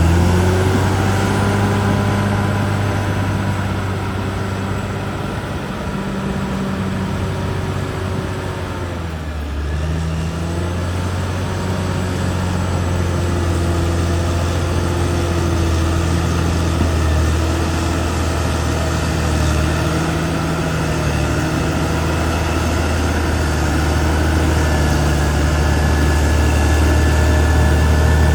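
Caterpillar D6R XL bulldozer's diesel engine running steadily while working, its pitch dipping briefly about a third of the way through and then recovering.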